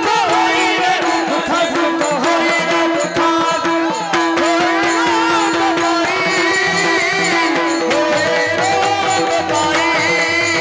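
Marathi devotional bhajan music: a male voice singing ornamented, wavering melodic lines over a steady held note, with mridang drum strokes keeping rhythm throughout.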